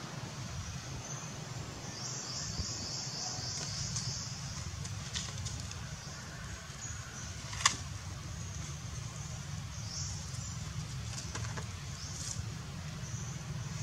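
Outdoor ambience: a steady low rumble under high, rapid chirping calls in short runs, with one sharp click a little before the eight-second mark.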